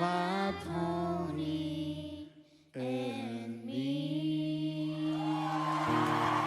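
Several voices singing in close harmony, drawing out the song's final line on long held notes with a brief break midway. Whoops and cheering start to swell in near the end.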